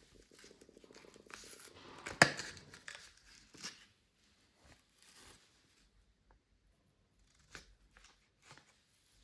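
Packaging being torn open by hand: about two seconds of ripping that ends in a sharp snap, followed by light rustling and a few small clicks as the box is handled.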